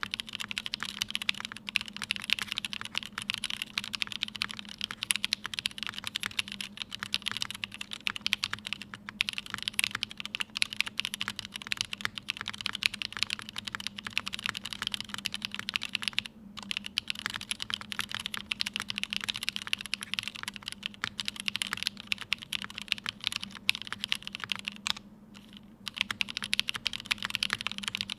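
Continuous fast typing on a Tomo mechanical keyboard with lubed and filmed Cherry MX Black linear switches on Kailh stems, an aluminium plate in top mount and GMK Serika keycaps. There are brief pauses about sixteen seconds in and again near twenty-five seconds, and a faint steady hum sits underneath.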